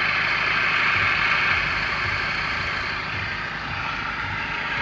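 Maruti Suzuki Vitara Brezza engine running with the bonnet open, giving a steady high hissing whir over the low engine rumble. The owner places the noise at the fan belt.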